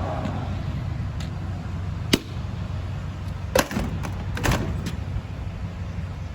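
Vehicle running with a steady low rumble, broken by a sharp click about two seconds in and a couple of knocks about three and a half and four and a half seconds in.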